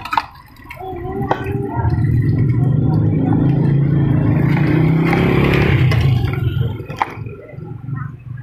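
A motorcycle engine passing close by, rising about two seconds in and fading away a few seconds later. A few sharp clinks are heard before and after it.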